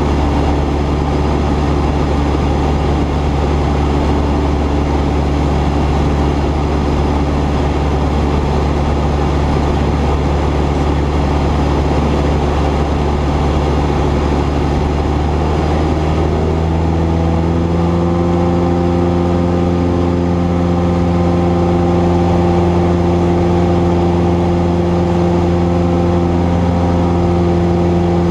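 Cessna 172's piston engine and propeller running steadily in flight. About sixteen seconds in, the engine note rises a little and then holds at the higher speed.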